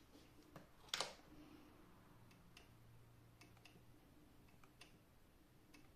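Near silence broken by faint, scattered ticks and one sharp click about a second in, with a faint low hum in the middle.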